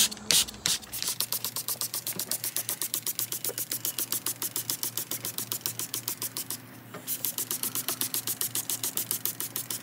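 Hand trigger spray bottle squeezed rapidly over and over, each pull a plastic click with a short hiss of engine degreaser spraying out. It runs at several pulls a second, with one brief pause about seven seconds in.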